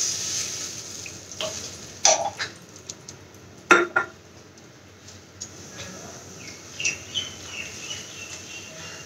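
Hiss of water just poured into a hot wok of vegetables, dying away over the first second or so, then a few knocks and scrapes of a silicone spatula against the nonstick wok as the mix is stirred.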